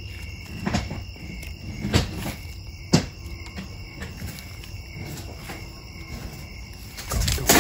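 Night insect chorus, crickets chirping steadily, with a few sharp knocks about a second apart early on and louder rustling near the end.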